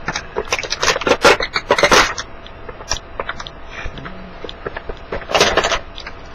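Plastic packaging crinkling and rustling in irregular bursts as new headphones are pulled out of their plastic wrap. The handling is busiest in the first two seconds, with another burst about five and a half seconds in.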